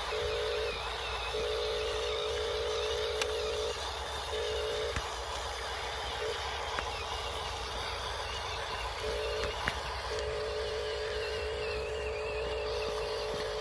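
Huina 1582 RC dump truck's electric drive whining as it crawls over dirt, the steady whine starting and stopping with the throttle several times, with a longer pause in the middle. A low steady rumble runs underneath.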